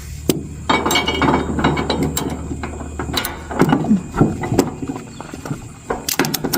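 Irregular metallic clicks and clanks of tow-truck wheel-lift gear being slid and adjusted to fit the car.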